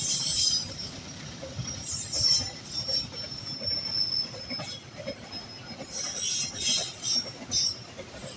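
Indonesian railway train's wheels squealing against the rails over a low rumbling clatter. The high squeals come in several bursts, one held steady for about two seconds in the middle.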